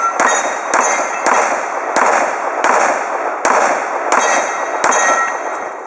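A string of about eight pistol shots, roughly one every two-thirds of a second, each echoing off the range.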